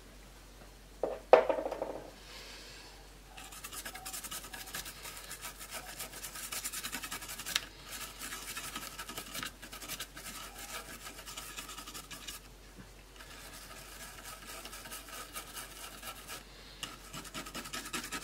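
Rapid back-and-forth scrubbing strokes, cleaning up around a freshly soldered replacement DC power jack on a laptop, in long stretches with short pauses. A sharp knock about a second in is the loudest sound.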